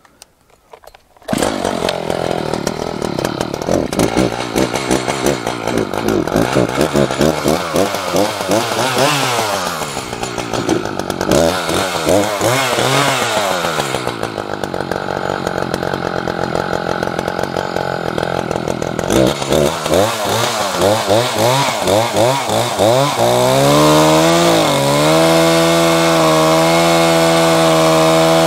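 Small gasoline engine running, its speed rising and falling repeatedly, then held at a high, steady speed for the last few seconds before it cuts off.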